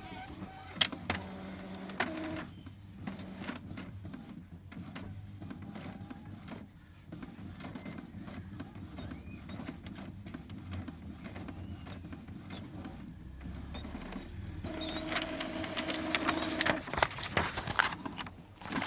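Epson L3150 inkjet printer printing a nozzle check page: the print head carriage and feed mechanism running with rapid ticking and clicking, and a steady motor whine briefly at the start and again near the end.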